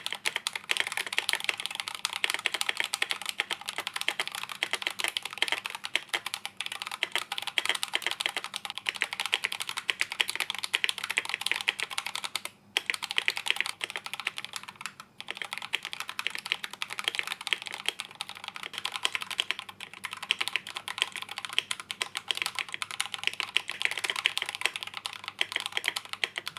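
Sound test of Akko mechanical keyboard switches, linear and tactile: fast continuous typing, the keystrokes clacking densely, broken by two brief pauses about halfway through.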